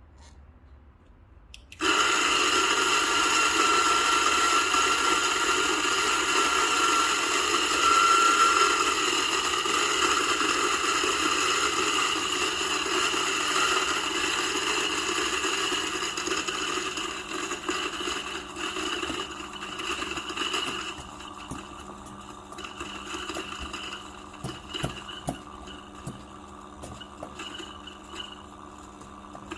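DF64 single-dose flat-burr espresso grinder starting about two seconds in and grinding a dose of coffee beans, a loud steady whirring grind. After about twenty seconds it thins to lighter, uneven rattles and clicks as the burrs run nearly empty while the motor keeps spinning.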